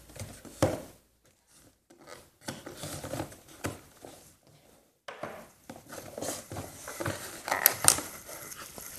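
Handling noise from a boxed set of small glass perfume bottles: scattered clicks, taps and scrapes of glass, card and plastic as the bottles are worked out of their tight-fitting tray and set down, with a couple of sharper knocks near the end.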